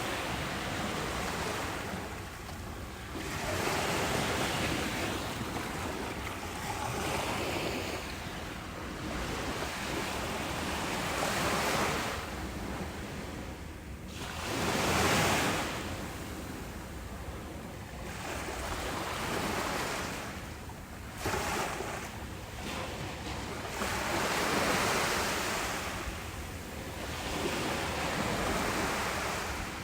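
Small ocean waves washing ashore, the surf swelling and receding every few seconds, with wind.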